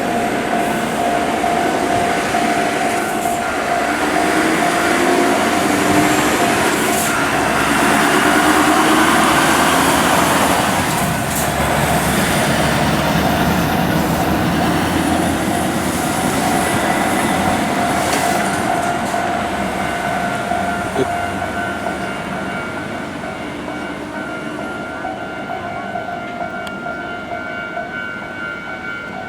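A heavy double-trailer truck rig, a tractor hauling two loaded trailers, passes through the crossing with its diesel engine and many wheels rumbling. It grows loudest about a third of the way in, then slowly fades. A steady high tone runs underneath.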